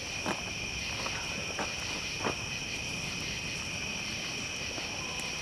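Steady, continuous chorus of night insects, a high even trill, with three sharp clicks or snaps in the first half.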